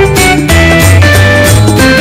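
Background music: an upbeat instrumental track with held melody notes, a steady bass and a regular beat, with a bright jingling sound.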